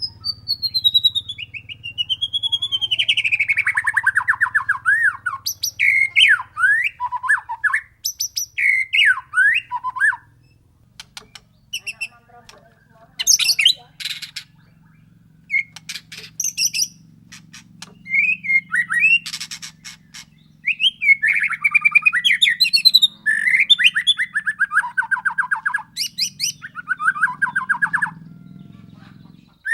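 White-rumped shama singing: loud whistled phrases that sweep down into fast rattling trills, with short sharp chips and clicks in a quieter stretch in the middle, over a faint low hum.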